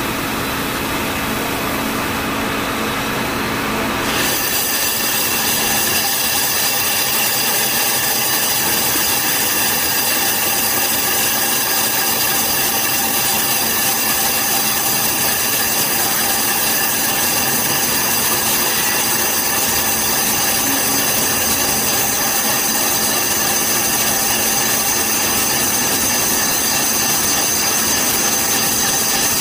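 CNC vertical lathe turning a cast-iron brake workpiece: a steady machine hum, then about four seconds in a steady high-pitched metal-cutting screech from the turning tool takes over.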